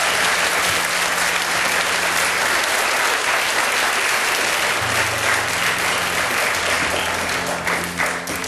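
Studio audience applauding, dying away near the end, with soft music coming in underneath about halfway through.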